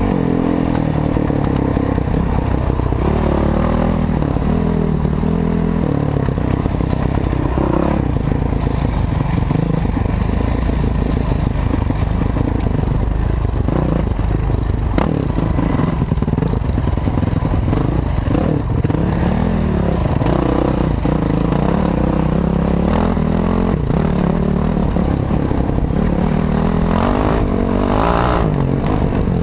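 Enduro dirt bike engine running and revving up and down as the bike rides a rough, rocky trail, with clattering and a few knocks from the bike over the ground.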